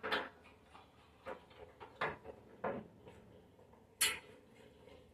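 Small metal clicks and scrapes from the hood fastening hardware being worked by hand, cinching down the side of a butterfly hood, about five separate clicks with a sharp, loudest one about four seconds in.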